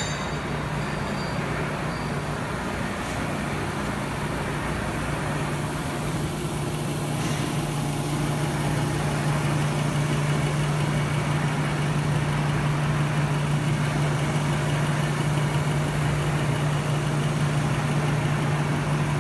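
Kitamura Mycenter-2Xi vertical machining center running with its spindle at 5,000 RPM in high gear: a steady low hum over a constant hiss, getting slightly louder about eight seconds in.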